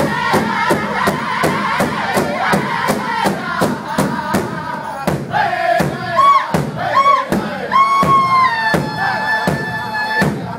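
Powwow drum group singing around a big drum: a chorus of men's high-pitched voices over drumsticks striking the drum together at about three to four beats a second. In the second half the singing rises into long, high held notes.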